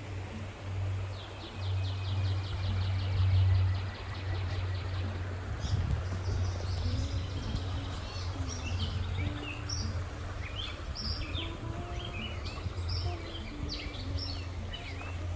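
Songbirds calling and singing: a fast, even trill of high notes in the first few seconds, then many short high chirps. Beneath them runs a steady low rumble.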